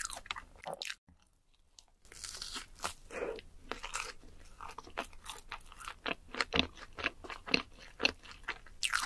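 Chewing of a red-glazed donut: many short, irregular mouth clicks, with a pause of about a second just after the start.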